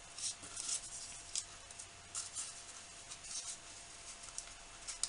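Folded paper origami modules rustling and scratching softly in the hands as the points of one module are pushed into the pocket of the next, in short irregular rustles.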